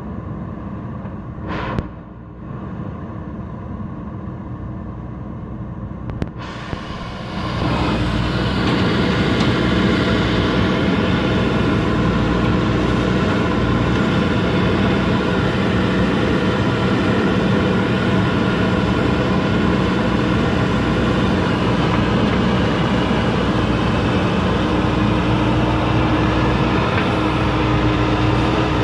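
Heavy diesel machinery engine running with a steady note. A brief sharp click comes near the start, and the engine gets clearly louder about seven seconds in, then holds steady.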